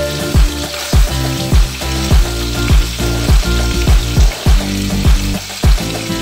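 Chicken pieces sizzling in a frying pan as they are turned with tongs, under background music with a steady deep drum beat a little under two beats a second.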